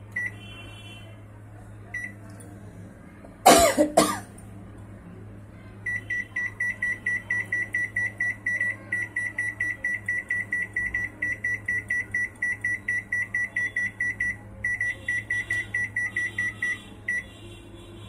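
Samsung microwave oven's keypad beeping as its buttons are pressed: a couple of single beeps, then a rapid train of short high beeps, about four a second, for some eleven seconds while the cooking time is set. Two loud short bursts come a little over three seconds in.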